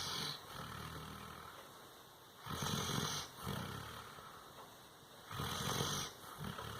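Doberman snoring in its sleep: a low snore on each breath, about every three seconds, the later two louder.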